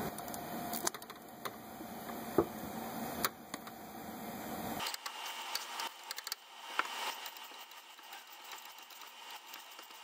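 Socket wrench ratchet clicking through a long extension and swivel while a spark plug is removed from a Subaru H6 engine, with scattered metal taps and knocks of tool handling first and a quicker run of clicks after about five seconds.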